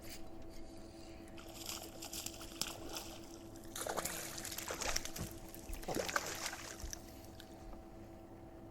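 Electric trolling motor humming steadily, with water splashing and sloshing at the boat from about a second and a half in until about seven seconds.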